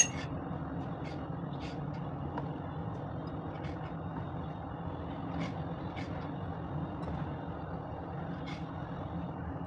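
A kitchen knife slicing chicken gizzards on a wooden cutting board: a sharp click at the start, then a few faint, irregular taps of the blade on the board, over a steady low background rumble.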